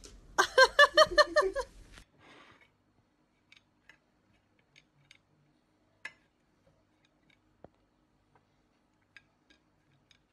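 A voice gives a quick run of about seven high-pitched syllables in just over a second, then only a few faint scattered ticks.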